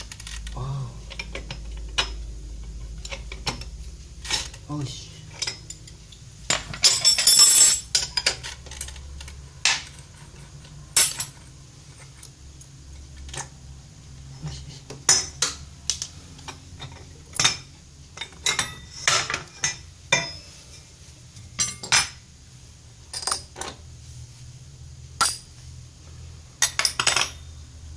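Spanner and front-pulley (variator) parts of a Honda Vario 125's CVT clinking as the pulley is unbolted and pulled off by hand: scattered sharp metallic clicks, with a longer clattering rattle about seven seconds in.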